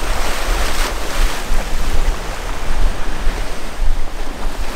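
Rough surf washing over black lava rocks at the shoreline, with one wave hissing in brighter near the start. Wind rumbles on the microphone throughout.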